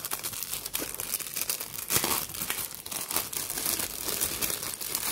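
Plastic bag crinkling and crackling as it is opened and pulled off a boxed fingerprint attendance machine, without a break.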